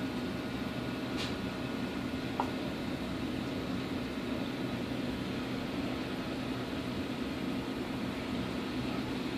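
Steady mechanical hum with an even hiss from running equipment, with a faint short tick a little over a second in and a brief high blip a couple of seconds in.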